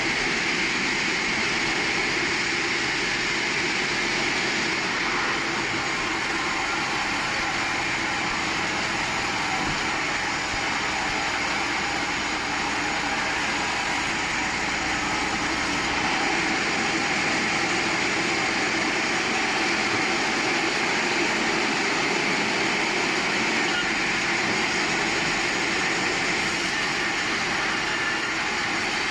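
Sawmill saw running with a steady, even mechanical noise.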